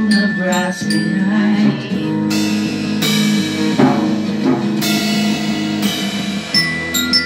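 Drum kit played over music of sustained chords, with three cymbal crashes in the middle and a few drum hits; glockenspiel notes ring near the start and again near the end.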